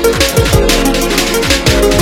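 Electronic music with a fast, driving drum-and-bass beat, deep sliding bass hits and sustained synth notes.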